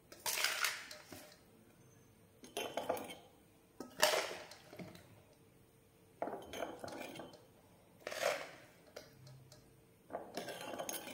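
A spoon scraping and clinking against a steel bowl and a glass jar as pickle is scooped across, in about six separate bursts, one every one and a half to two seconds.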